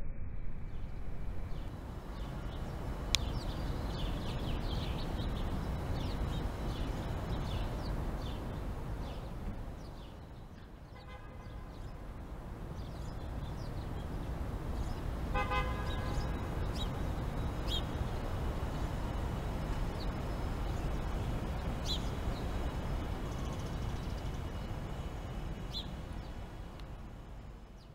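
Steady city traffic rumble with a car horn honking twice, faintly about 11 seconds in and more clearly about 15 seconds in. A sharp click comes about 3 seconds in.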